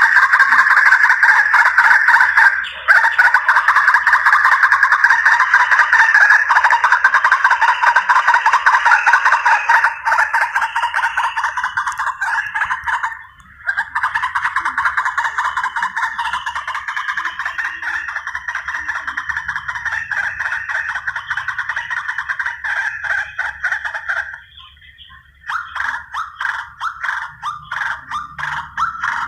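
White-breasted waterhen (ruak-ruak) lure call: a rapid, continuous run of harsh repeated calls, broken by short pauses about 3 s in, about 13 s in and near the end.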